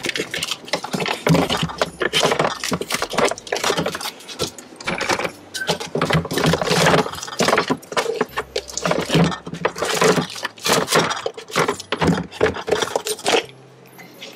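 Jars, bottles and plastic tubs clattering and knocking against each other and the fridge's glass shelves as things are shoved about inside a crowded fridge, a rapid, unbroken run of knocks and rattles that dies away near the end.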